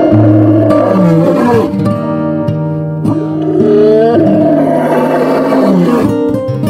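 A white lion roaring in several long, rough calls over acoustic guitar music.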